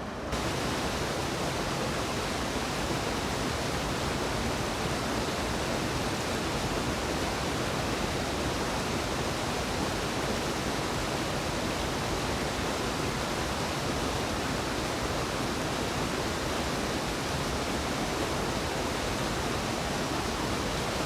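Waterfall on a creek, falling water rushing in a steady, even wash of noise.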